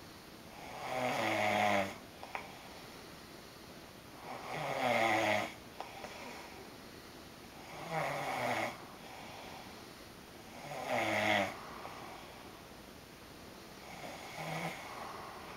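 A man snoring in his sleep: five snores about three and a half seconds apart, each lasting a second or so, the last one fainter.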